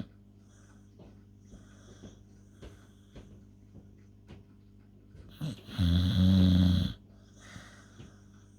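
Staffordshire Bull Terrier snoring in its sleep: several seconds of faint breathing, then one loud, deep, droning snore lasting about a second, a little past the middle.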